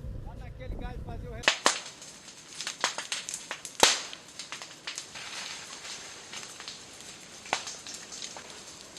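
Wildfire burning through vegetation, crackling with sharp irregular pops over a hiss, the loudest pop about four seconds in. It is preceded by a low rumble that cuts off about a second and a half in.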